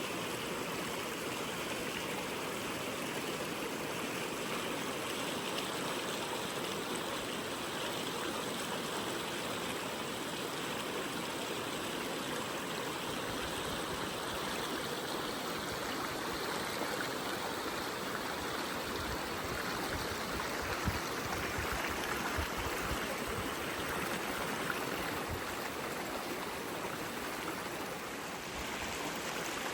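Seomjin River water flowing: a steady rushing stream sound. Past the middle, a few seconds of low thumps and rumble come through under it.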